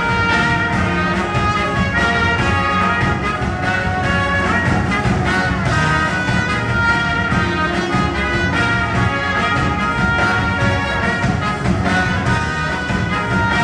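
Trumpet playing a sustained melody live, over a band's steady rhythmic accompaniment.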